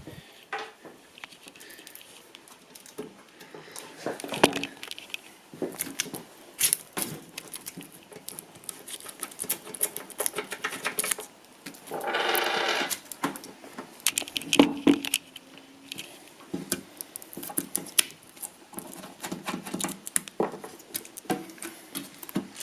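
Small computer parts and packaging being handled by hand: a long run of light clicks, taps and rustles as screws and components are picked up and set down. About twelve seconds in there is a buzzing scrape lasting about a second and a half.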